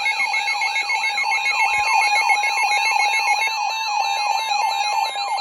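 Emergency weather alert tone: a steady tone with a warbling, siren-like sweep repeating about three to four times a second over it. It signals an incoming National Weather Service warning, here a special marine warning about to be read.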